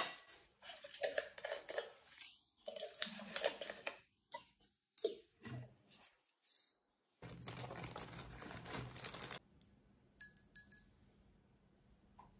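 Close-up kitchen handling sounds: a metal tea tin and its lid picked up and handled, with rustling and light knocks. About two seconds of steady rustling follows, then a few short ringing clinks of glass.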